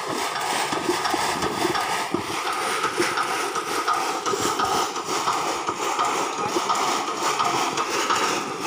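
Hand-operated garlic grading machine being worked: garlic rattling and knocking over its metal mesh screen in a continuous clatter.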